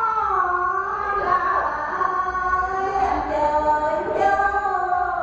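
Voices chanting together in unison, with long held notes that slide up and down in pitch, in the manner of Buddhist devotional chanting.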